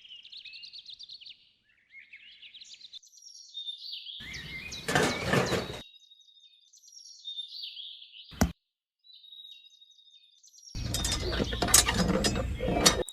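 Small birds chirping and twittering. A rough burst of noise comes about four seconds in, a single sharp click a little past the middle, and louder rough noise over the last two seconds.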